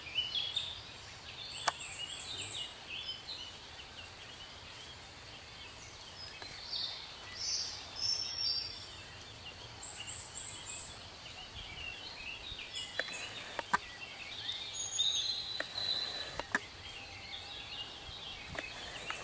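Birds singing and calling in short high chirps over a faint steady outdoor background, with a few sharp clicks, most of them in the second half.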